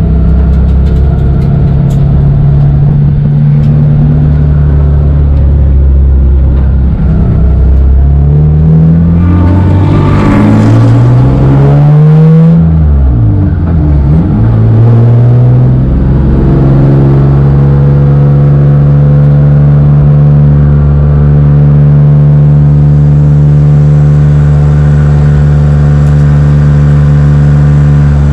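BMW E36 race car engine, heard from on board, running loud and steady; about a third of the way in the revs climb and then drop back over a few seconds before settling into a steady drone again.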